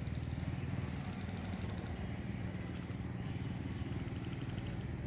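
Steady low drone of an engine running at constant speed.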